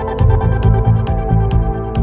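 Electronic background music with a steady beat: a sharp percussion hit about twice a second over deep bass and held notes.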